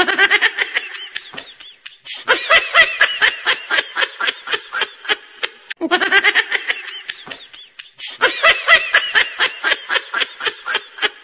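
Laughter in quick, rhythmic peals, with a stretch of about six seconds playing twice over, as a looped laugh clip does.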